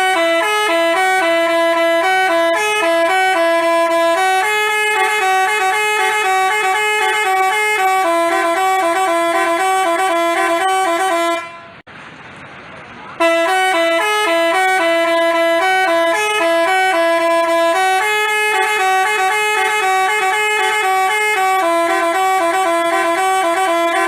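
Telolet basuri bus horn playing a melody of quick notes, two tones sounding together. The tune runs for about eleven seconds, breaks off for a second and a half, then plays again.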